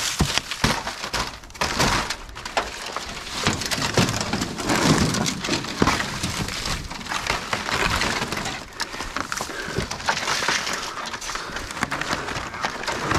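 Dry brush, sticks and wooden debris crackling and snapping as they are trampled and pushed through, with many sharp snaps in quick succession throughout.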